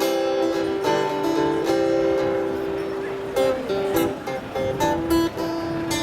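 Guitar played through an amplified sound system, picked notes and strummed chords in an instrumental passage between sung verses.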